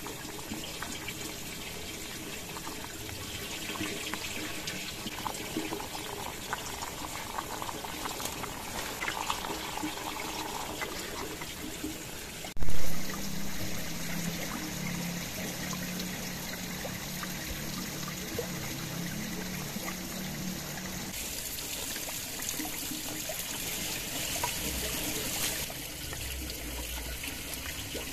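Rice boiling and frothing in a camping pot while it is stirred with a plastic spoon. About halfway through there is a brief loud thump, and then water runs and trickles steadily from a bamboo spout over mud.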